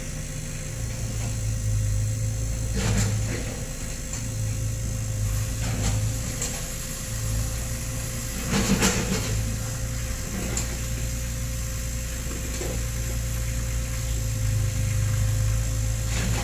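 Komatsu PC30 mini excavator's diesel engine running steadily, with a few sharp knocks from the machine at work, the loudest about halfway through.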